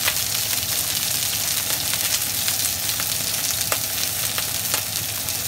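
Oil sizzling steadily around large head-on shrimp shallow-frying in a wok, with scattered small pops of spattering oil.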